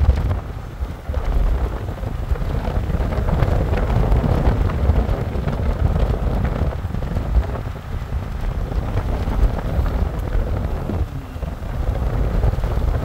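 Wind buffeting the microphone over the low running and road noise of a moving vehicle, the gusts rising and falling unevenly.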